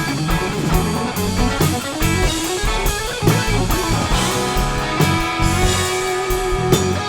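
Rock music with electric guitar, bass and drum kit playing a steady beat; a guitar line slides up in pitch partway through.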